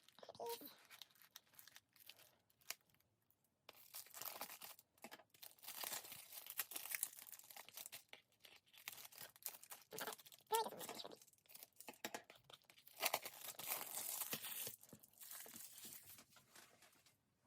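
Plastic shrink-wrap being cut and peeled off a CD jewel case, with irregular crinkling and tearing that comes in bouts, mostly after the first few seconds.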